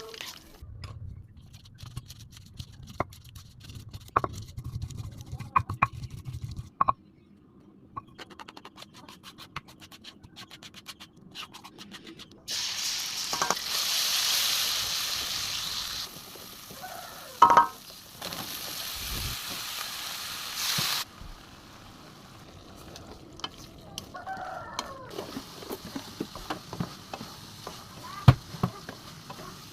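Oil frying in a pan: scattered crackling and spatting, then a loud sizzle partway through that cuts off abruptly and returns a couple of seconds later, with stirring noises between.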